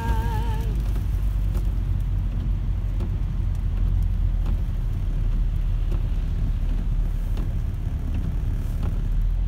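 Road noise heard from inside a moving car on a wet, slushy road: a steady low rumble of engine and tyres, with a few faint clicks.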